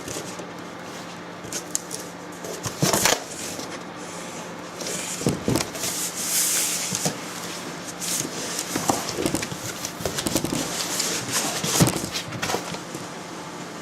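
Cardboard box and packaging being handled and opened: irregular rustling and scraping, with a sharp knock about three seconds in and a longer hissy rustle in the middle.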